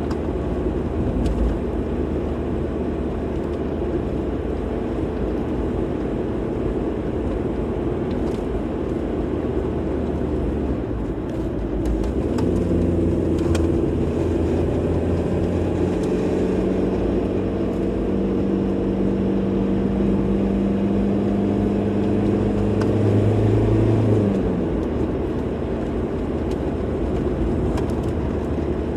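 Car driving along the road: steady road and tyre noise, with the engine's hum rising out of it about twelve seconds in, holding a steady pitch, and dropping away about halfway through the second half.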